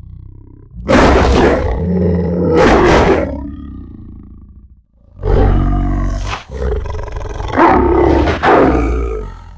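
Designed demon-wolf monster sound effect: two long, rough, deep roars, the first about a second in and trailing off, the second starting about halfway through and surging several times before it cuts off.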